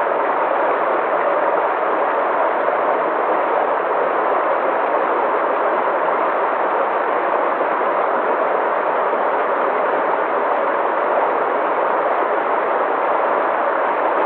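A steady, even rushing noise with no pitch or rhythm, unchanging throughout.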